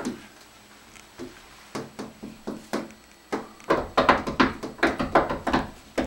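Hands knocking and slapping on a glass sliding door: a few scattered taps at first, then a quick run of knocks, about three or four a second, in the second half.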